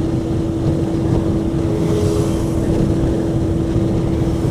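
Honda CB600F Hornet's inline-four engine running at a steady note while riding along, with a low rumble and wind rush on the microphone.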